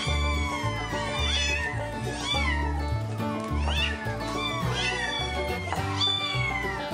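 Several kittens meowing over and over in high calls that rise and fall, overlapping a few times a second, over background music with a steady bass line.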